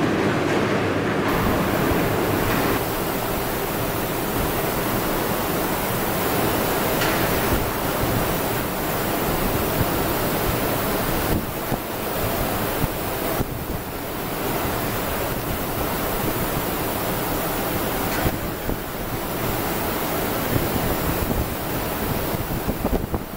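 Electric arc furnace in operation: a loud, rough, continuous noise across all pitches that flickers and wavers in level, with brief dips now and then.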